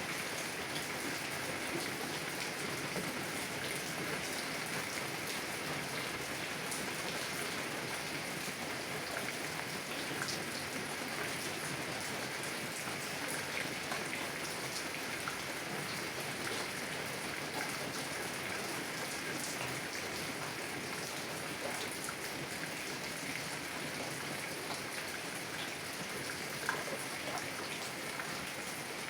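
Heavy rain falling on a car window, a steady hiss with scattered individual drop hits and one slightly louder tap near the end.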